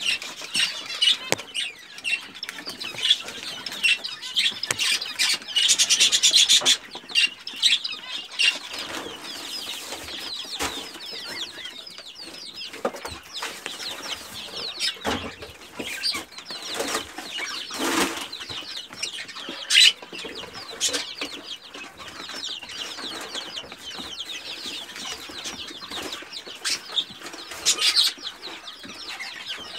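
A brood of young Pekin bantam chicks peeping constantly in short high chirps, with scratchy rustling and sharp taps as they scratch and peck in a tray of chick crumb. The peeping is busiest and loudest about six seconds in.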